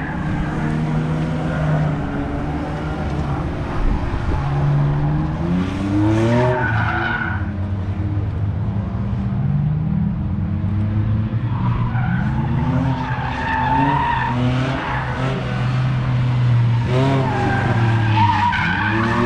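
Drift car's engine revving hard through slides, its pitch climbing in rising sweeps about six seconds in, again around twelve to fourteen seconds, and near the end, with tyres skidding on the tarmac.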